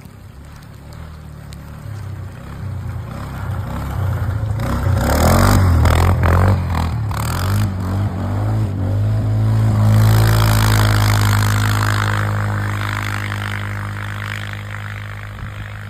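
Quad (ATV) engine revving as it comes closer, with tyres scraping and sliding on loose ground in the middle, then running at a steady note that peaks about ten seconds in and slowly fades as it moves away.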